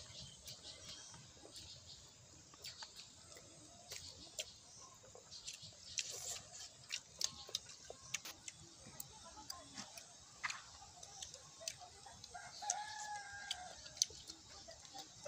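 Faint smacking and clicking of hand-eating and chewing, with one rooster crow of about a second roughly three-quarters of the way through.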